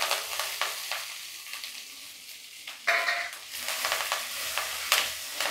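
Sliced onions and curry leaves sizzling in hot sesame oil in a nonstick kadai while a wooden spatula stirs and scrapes them around the pan, with a brief louder scrape about three seconds in.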